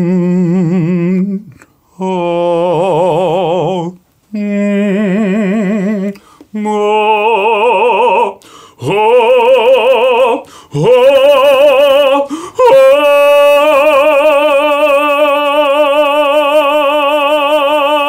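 A man singing wordless operatic phrases with heavy vibrato. About six short phrases, broken by breaths, climb in pitch and end in a long held high note over the last five seconds.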